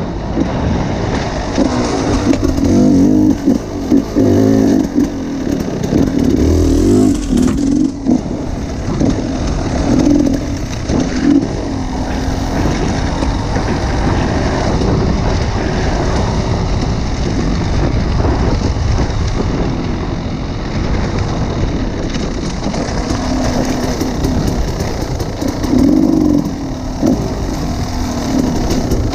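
Enduro motorcycle engine under way off-road, its revs rising and falling as the throttle is opened and closed, with the strongest bursts in the first few seconds and again near the end.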